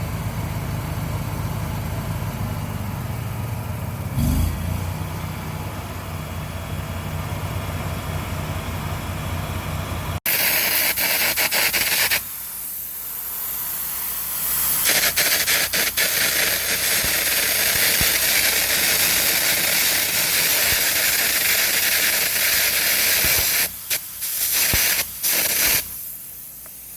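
For about the first ten seconds, a Miller Trailblazer 325 engine-drive welder running steadily. Then, after an abrupt cut, air carbon arc gouging: a loud, harsh hiss of the arc and the compressed-air jet blowing out molten weld metal. It stops and restarts briefly a few times.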